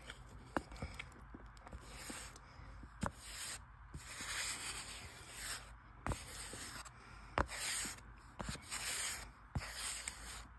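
Fingers rubbing cornstarch powder over a bar of Irish Spring soap in a plate: about six short, dry, hissy rubbing strokes, with a few sharp clicks between them.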